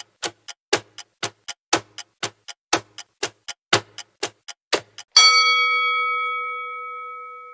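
Countdown-timer ticking sound effect, about four ticks a second for five seconds, then a single bell-like chime that rings out and fades slowly as the answer is revealed.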